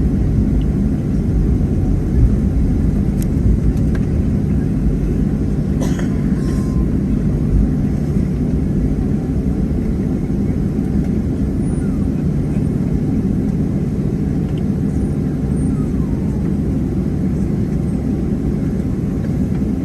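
Steady low rumble inside the cabin of a Boeing 737-700 on the ground, from its CFM56-7B engines and the moving airframe, holding level with no build-up of thrust. A brief faint rattle comes about six seconds in.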